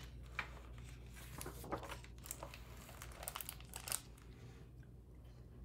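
Faint paper rustling and crinkling as a hardcover picture book's page is turned and handled, a scatter of soft rustles and clicks over a steady low hum.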